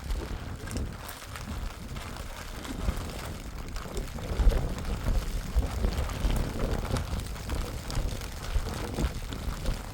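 Storm wind buffeting the microphone: an uneven, gusty low rumble with scattered crackles.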